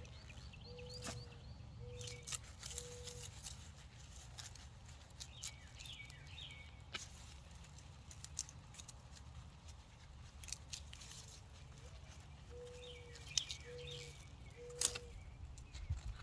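Birds calling outdoors: low cooing hoots in two runs of three, the second run led by an upward-sliding note, with higher chirps from smaller birds. A few sharp clicks stand out, one loud near the end.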